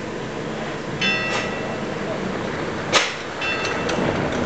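Construction-site work noise: a ringing metallic clank about a second in, a sharp knock about three seconds in, and another short metallic ring just after, over a steady background rumble.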